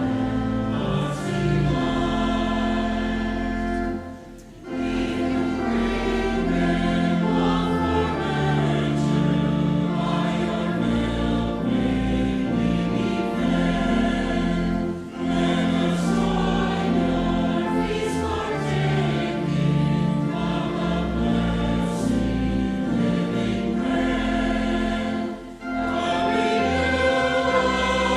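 Church choir singing sustained phrases over a low accompaniment, with brief pauses between phrases about four, fifteen and twenty-five seconds in.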